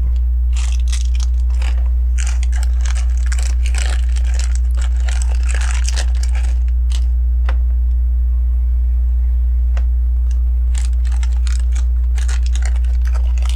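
Small plastic LEGO pieces clicking and rattling as fingers sift through them looking for a part, busy for the first seven seconds, a lull, then picking up again near the end. A steady low electrical hum runs underneath.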